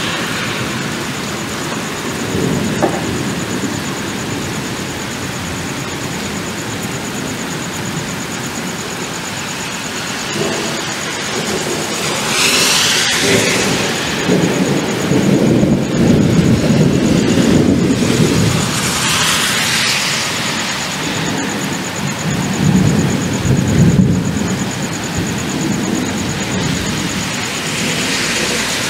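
Thunder over steady rain: a short crack about three seconds in, then long rolling rumbles through the second half, loudest between about twelve and twenty-four seconds in.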